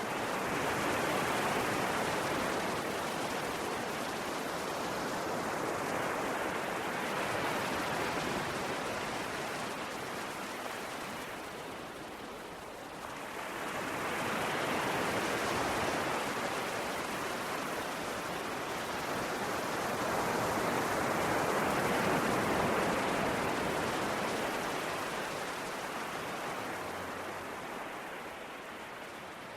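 Sea waves breaking and washing ashore, a continuous rush of surf that swells and eases in slow surges about every six to eight seconds.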